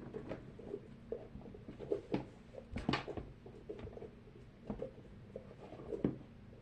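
Soft rustling and scattered light knocks of squishy fidget toys being handled and shifted around in a container, with a few sharper clicks about two, three and six seconds in.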